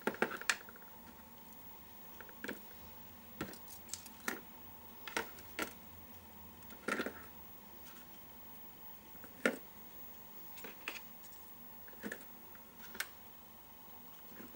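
Light irregular knocks and clatter of handmade wire-wound coils on tape-wrapped cardboard and plastic tubes being set down and stacked onto a pile on a tabletop, about a dozen in all.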